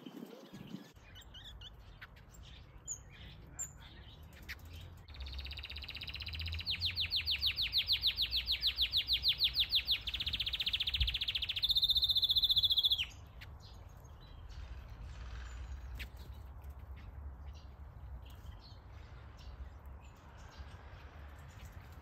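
Birds chirping in an aviary. A loud, high-pitched trill of fast even pulses starts about five seconds in, runs into a steady buzz and cuts off suddenly around thirteen seconds. Short chirps are scattered through the rest.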